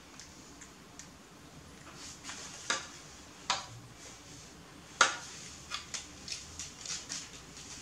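Plastic dishes and food containers clicking and knocking as they are handled: a few sharp taps, the loudest about five seconds in, then a quick run of lighter clicks.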